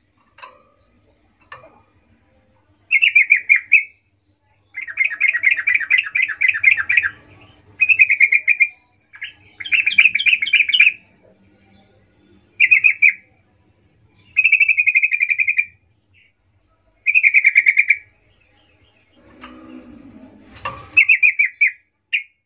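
Yellow-vented bulbul singing its rolling song: a run of short, bubbly trilled phrases about a second each, separated by brief pauses. Near the end a short rustle and a sharp click break in before the song resumes.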